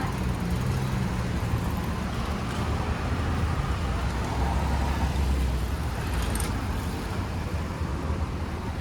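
Road traffic moving over a reopened level crossing, a steady rumble of cars, with a heavier low rumble about halfway through.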